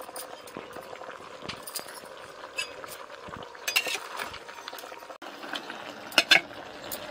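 Mutton and tomatoes sizzling in an aluminium pressure cooker while a metal spatula stirs them, scraping and clinking against the pot. The sharpest clinks come near the end.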